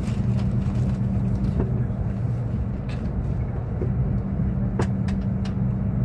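Running noise inside a moving Renfe Alvia passenger train: a steady low hum over wheel rumble, with a few sharp clicks in the second half.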